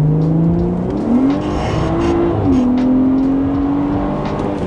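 BMW E90 3 Series engine under acceleration, with road noise. Its pitch climbs sharply about a second in, holds high, then drops at about two and a half seconds as a gear change, and runs steadily after that.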